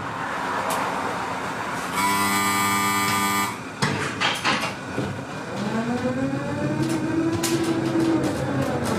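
Inside a Tatra T4D tram: a steady buzzing warning tone for about a second and a half, the doors closing with a short clatter, then the motors whining as the tram pulls away, the whine rising and then falling in pitch.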